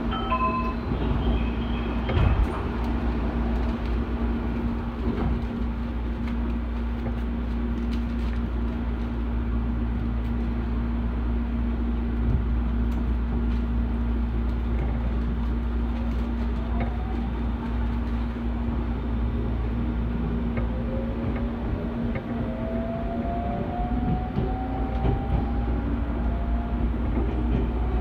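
Senboku Rapid Railway 7000 series electric train heard from inside as it pulls out of the station and accelerates: a steady low hum, with the whine of its traction motors rising in pitch in the last third.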